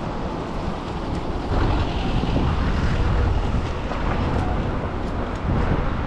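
Street traffic on a rainy city street: tyres hissing on wet road, with one vehicle swelling past about a second and a half in. Wind rumbles on the microphone underneath.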